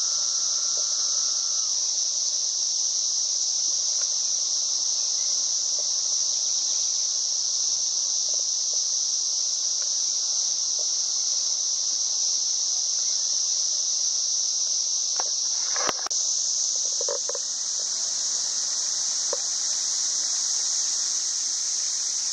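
Steady, high-pitched insect chorus, crickets or similar night-singing insects, running unbroken. A brief knock sounds about two-thirds of the way through.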